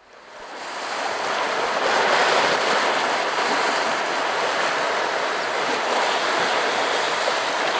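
Small lake waves breaking and washing over a flat rock shoreline: a steady rushing wash of surf that fades in over the first two seconds.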